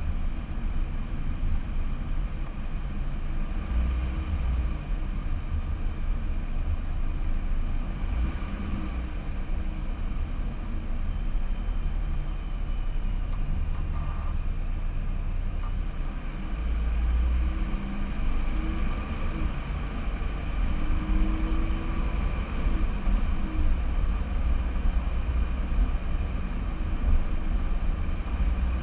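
Car driving at low speed, recorded by a camera mounted on the car: a steady low rumble of engine and road noise.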